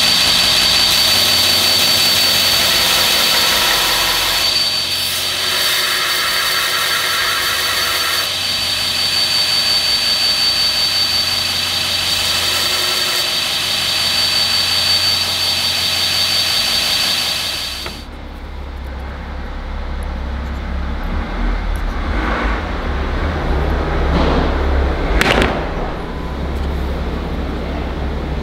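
Belt grinder running with a steady high whine while a small knife-handle piece and bolster are ground against the belt, the grinding noise swelling for a few seconds. About eighteen seconds in it cuts off abruptly, leaving a low steady rumble.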